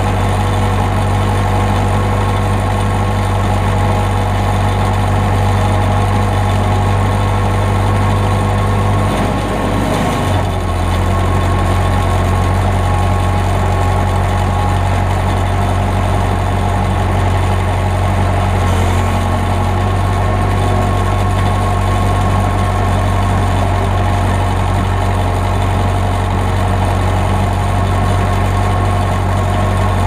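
Diesel backhoe engine running steadily under way, heard up close from its hood. Its note dips briefly about ten seconds in, then picks back up.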